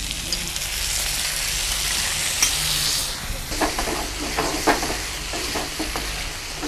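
Chicken, onion, capsicum and mushroom sizzling in a hot frying pan as brown sauce is spooned in, the hiss strongest over the first three seconds. Then a wooden spatula stirs and scrapes through the pan in short strokes.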